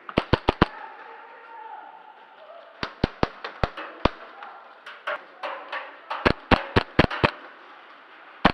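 Airsoft guns firing in sharp semi-automatic shots: a fast string of four, then a few spaced single shots, then another quick string of about five or six.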